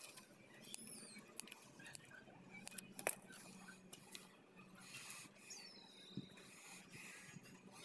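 Faint clicks and crinkles of a cut plastic bottle's strips being handled and bent outward, with one sharper click about three seconds in.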